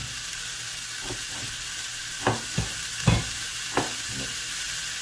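Thick 40-ounce ribeye steak sizzling on a hot stovetop grill pan: a steady hiss, broken by four sharp pops around the middle, the loudest a little after three seconds in.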